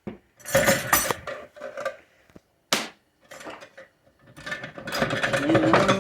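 Steel parts of a 4L60E automatic transmission clinking and clattering as they are handled during teardown, with a single sharp metallic clank about three seconds in and a longer stretch of scraping, clattering and ringing metal near the end.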